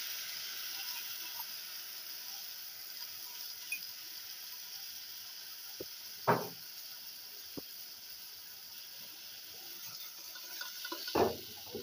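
Chicken pieces cooking in a pot of just-added stock, giving a steady hiss of hot liquid. A metal spoon knocks against the aluminium pot twice, once about six seconds in and once near the end.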